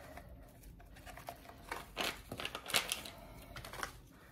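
Seasoning packet crinkling and rustling in the hands, a run of crackly rustles starting about a second in and stopping near the end.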